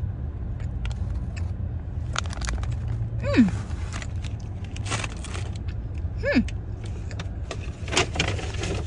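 Steady low rumble of a car idling, heard inside the cabin, with scattered clicks and rustles of handling. Two brief falling tones come partway through.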